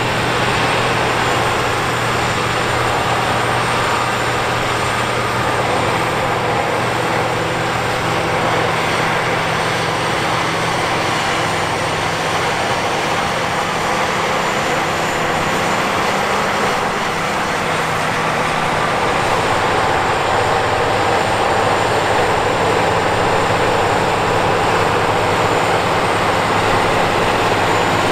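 Case IH Quadtrac 540 tracked tractor's diesel engine running steadily under heavy load while it pulls a seven-shank ripper and a disc harrow through the soil. It grows a little louder in the second half.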